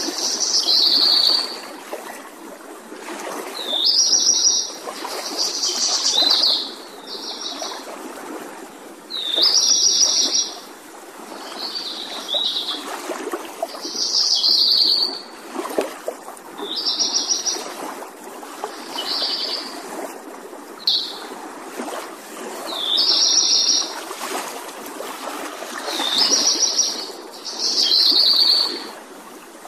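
A songbird singing short, high, trilled phrases, about one every two seconds, over a steady background hiss.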